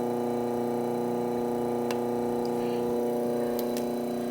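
Electrolux LTE12 washing machine running with its motor switched on in the spin cycle, a steady hum of several constant tones, with a single sharp click about two seconds in.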